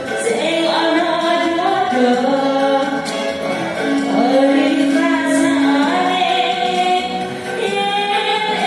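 A woman singing into a handheld microphone over a karaoke backing track, with long held notes that slide between pitches.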